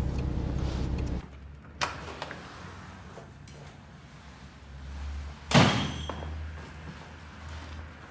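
A car engine idling with a low rumble that cuts off abruptly about a second in, then a faint click, and a door slamming shut about five and a half seconds in.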